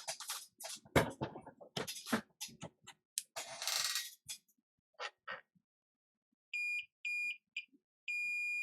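Clicks and handling taps, then a digital multimeter beeping as its probes touch lines on an iPhone 6s logic board: two short beeps, then a longer steady beep near the end.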